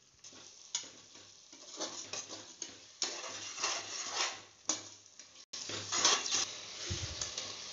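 Perforated steel ladle stirring and scraping a thick masala with curd in an aluminium pressure cooker, in irregular strokes, over a faint sizzle of oil frying.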